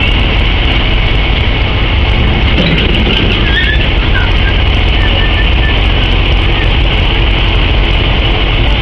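Steady loud noise from a freight train of covered wagons: a constant low rumble with a hiss over it, and a few faint short squeaks in the middle.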